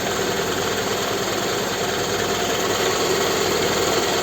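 Toyota Estima engine idling steadily with the automatic transmission in Drive, without the knock from the lower front of the engine that it had in Drive before.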